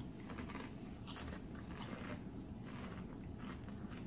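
Ranch tortilla chips loaded with bean dip being chewed, with a few faint, scattered crunches.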